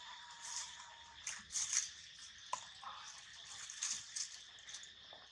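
Faint crackling and rustling of dry fallen leaves under monkeys' feet, in short scattered bursts over a steady faint high-pitched hum.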